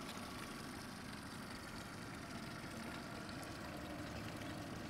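Outboard motor idling steadily.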